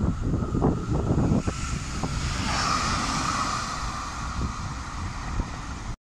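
Wind buffeting the microphone over a steady low rumble, with a few knocks in the first second and a half. The sound cuts off suddenly just before the end.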